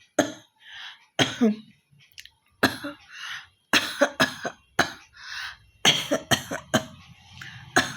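A woman coughing and hawking, clearing phlegm from her throat with about a dozen short, harsh coughs in quick runs of two or three. She has a real cough.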